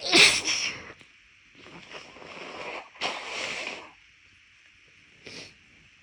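A person blowing their nose hard: a short, loudest blast right at the start, then two longer blows, and a brief small sniff or snort about five seconds in.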